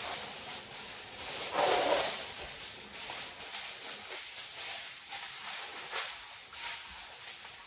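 Aluminum foil being pulled off the roll, then crinkled and folded around potatoes: a steady crackling rustle, loudest about two seconds in.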